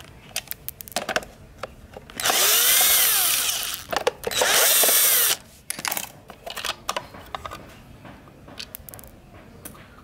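Cordless electric screwdriver running in two bursts of about a second each, its whine rising and falling as it backs screws out of an electric fan's plastic switch housing. Light clicks and taps follow as the plastic cover is handled.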